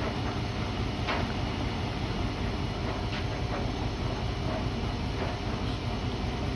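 Siemens iQ300 front-loading washing machine running mid-cycle: a steady motor hum and drum noise, with a few faint knocks.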